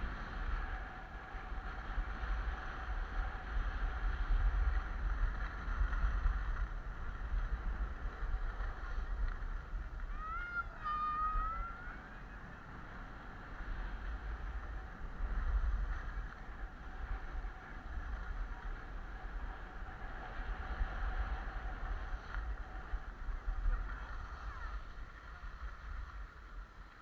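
Wind buffeting an action camera's microphone while skiing down a groomed slope, a gusty low rumble that swells and eases, over the hiss of skis sliding on snow. A brief high-pitched call comes about ten seconds in.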